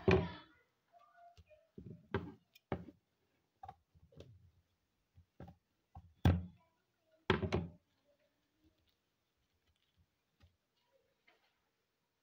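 A run of separate knocks and thuds from objects being handled and set down on a table, the loudest about six and seven seconds in, then only a few faint ticks.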